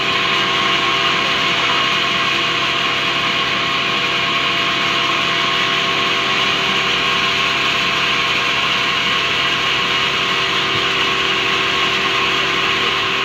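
A large sawmill band saw running steadily: a constant machine drone with a few steady whining tones.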